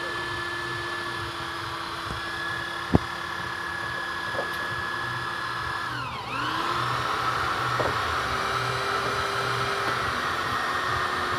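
A small electric motor, such as a power tool's, running with a steady whine. About six seconds in its pitch dips and comes back up, as if briefly loaded. A single sharp knock comes about three seconds in.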